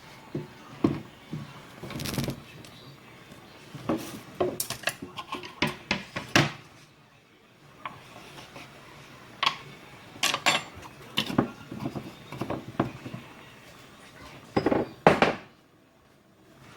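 Dishes and kitchen utensils clinking and knocking during cooking prep: irregular clatters in bunches, the loudest a double knock near the end.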